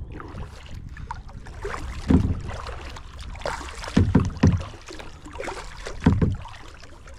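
A hooked trout being brought in beside a kayak: water splashing, with several low thumps about two, four and six seconds in.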